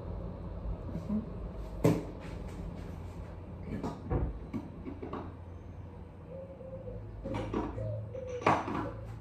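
Kitchen items being handled on a counter: a sharp knock about two seconds in, then scattered clatters and knocks, the loudest near the end.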